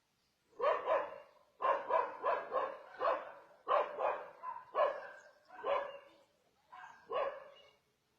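A dog barking over and over in quick runs of short, loud barks, starting about half a second in.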